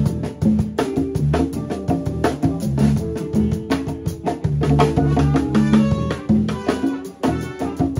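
Live funk band playing an improvised groove: drum kit and percussion keep a steady beat under a moving bass line, with guitar and other melodic parts on top.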